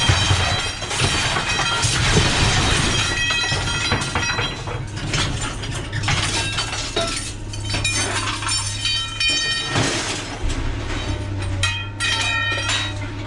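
Scrap steel pieces being thrown onto a scrap pile, clanging irregularly with metallic ringing after many of the hits, over a steady low hum.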